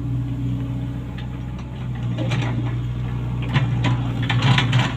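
Komatsu PC75US-3 excavator's diesel engine running steadily, with scattered metallic clanks and rattles from the machine, busiest near the end.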